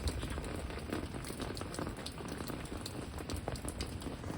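Heavy rain falling steadily on surfaces, with many separate drops ticking over a low rumble.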